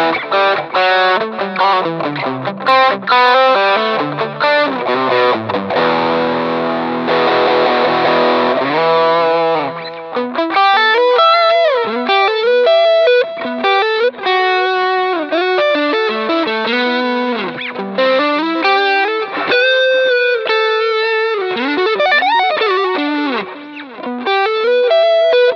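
Strat-style electric guitar played through a Shark The Gain Drive-Booster overdrive pedal with its drive knob at about three o'clock: a thick, chewy overdriven tone. Distorted chords come first, with a long held chord about six seconds in, then a single-note lead with string bends.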